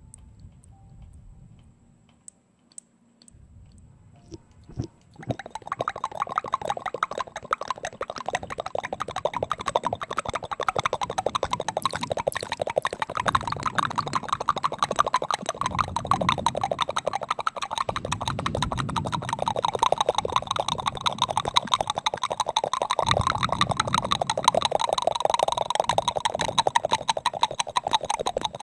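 Fast, continuous wet mouth sounds, tongue and lip clicks and smacks, made close into a microphone with a hand cupped around the mouth. They start about five seconds in, after a few faint isolated clicks, and run on densely.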